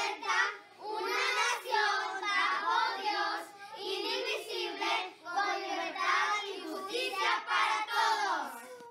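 A child's voice reciting the Pledge of Allegiance in Spanish in a high, sing-song delivery, in short phrases; it cuts off abruptly at the end.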